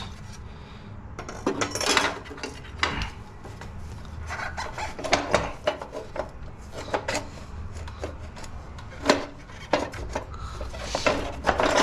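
Irregular clinks, knocks and scrapes of hand tools working on the metal parts of a garden tiller during disassembly.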